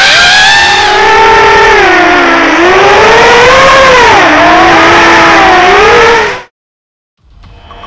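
FPV racing quadcopter's brushless motors and propellers whining, the pitch rising and falling with the throttle as it flies. The sound cuts off suddenly about six and a half seconds in.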